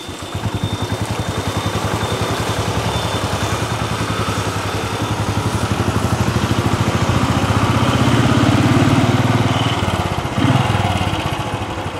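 Motorbike engine running at low speed along a street, a steady fast pulsing putter that grows a little louder over the ride, with a brief louder surge about ten seconds in.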